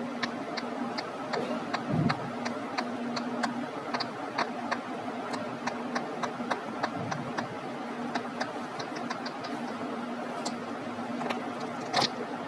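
Silicone pop-it fidget toy's bubbles being pressed in one at a time with a finger: a steady run of small soft pops, about two to three a second, with a louder pop near the end.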